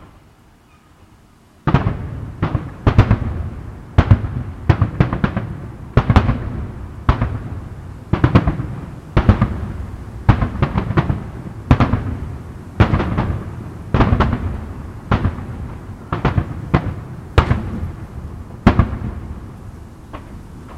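Fireworks display shells bursting in a steady series, roughly one loud bang a second with some in quick pairs, each followed by a rolling echo. The bangs start about two seconds in, after a near-quiet moment.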